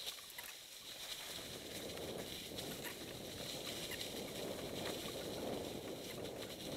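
Mountain bike tyres rolling over dry fallen leaves on a descent, a steady crunching rush with scattered clicks and rattles from the bike.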